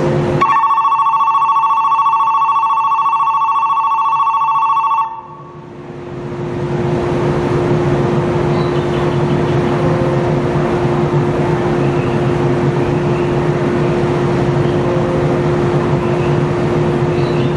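Electric departure bell on a station platform ringing steadily for about five seconds and then cutting off: the signal that the train is about to leave. A steady hum from the standing train runs underneath.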